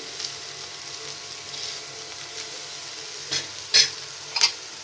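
Garlic, green chilli and ginger pickle sizzling lightly in a little oil in a kadai while it is stirred. Three sharp scrapes of the stirring utensil against the pan come in the second half, the loudest about three and a half seconds in.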